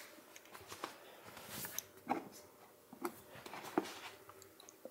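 Faint, scattered light taps and clicks over quiet room tone, about a dozen small ticks spread irregularly.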